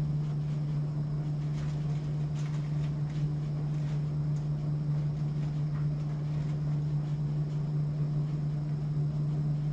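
A steady low hum with a second, fainter tone above it, with a few faint, scattered clicks and knocks.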